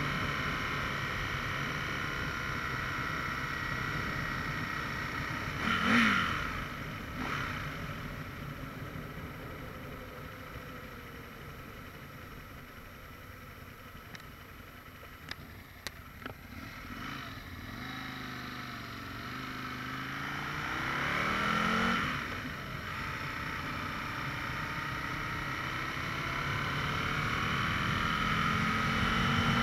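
Aprilia RSV 1000 R's V-twin engine heard from the rider's seat on the move, with a brief louder swell about six seconds in. The engine goes quieter for several seconds as the bike slows for a junction, then its pitch rises as it pulls away and accelerates, growing louder toward the end.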